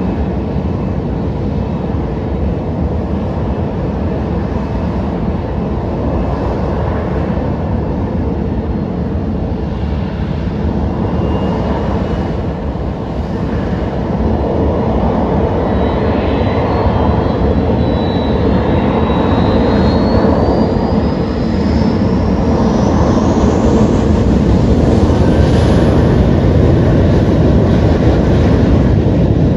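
Southwest Boeing 737's twin jet engines running up for takeoff: a loud, steady rumble that grows louder about halfway through, with a fan whine that climbs steadily in pitch as the engines spool up and the jet begins its takeoff roll.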